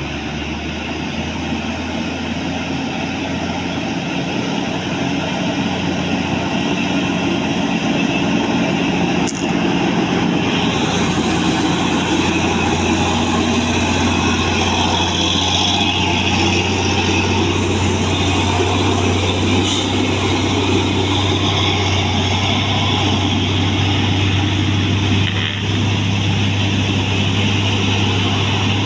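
Bus engine running with road noise, a steady low drone that grows louder over the first ten seconds and then holds.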